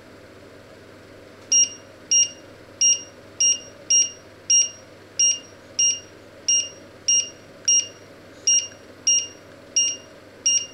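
Touch-control hob beeping as a finger presses its control key: about fifteen short, identical high beeps, roughly one every 0.6 s, beginning about a second and a half in. Each beep acknowledges one step up of the setting on the display. A steady low hum runs underneath.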